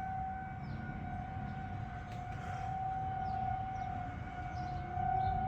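Outdoor tornado warning siren sounding a steady tone. Near the end a second, lower tone slowly rises in pitch and the sound swells a little louder.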